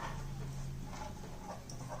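Steady low hum with a few faint soft scrapes of a spoon stirring jaggery in a pan, between louder strokes.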